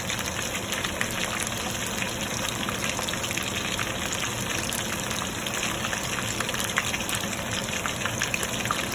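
Chicken lollipops sizzling in hot oil in a pan, a steady hiss dotted with many small crackles and pops. They are shallow-fried, not deep-fried, and near done.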